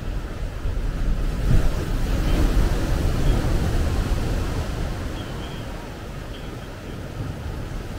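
Ocean wave breaking on a sandy beach: the surf swells about a second in, crashes with a deep rumble, then eases into the wash of foam running up the sand.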